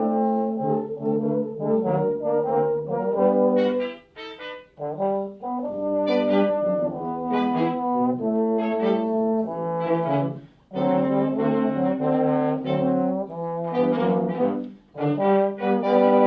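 A brass sextet playing a piece in chords. The phrases break off briefly about 4, 10 and 15 seconds in.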